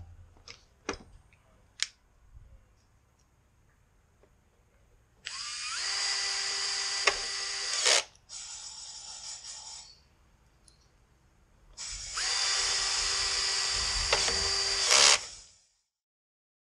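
Cordless power tool motor spinning up to a steady whine twice, each run about three seconds long; the first drops to a quieter, slower run for about two seconds before stopping. A few sharp clicks of tools being handled come before it.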